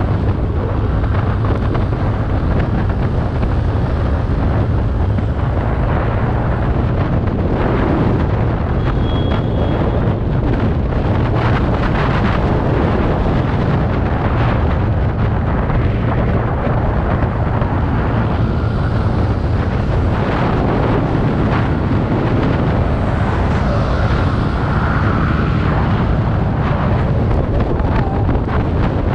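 Wind rushing over the camera microphone on a scooter ridden at about 65–80 km/h, over the steady drone of the TVS Ntorq 125's single-cylinder engine.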